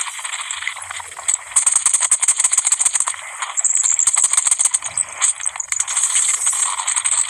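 Steel hand trowel scraping and tapping across a wet cement floor screed, giving a dense run of rapid, irregular scrapes and clicks that thins out near the end.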